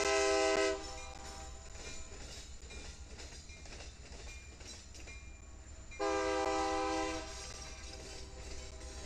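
Diesel freight locomotive's air horn sounding two blasts, a short one at the start and a longer one about six seconds in, over the steady low rumble of the locomotives and cars rolling past.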